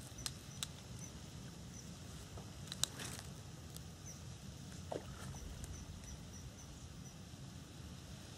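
A few sharp clicks and taps from a float-fishing rod and reel being handled, the loudest about three seconds in, over a low steady rumble.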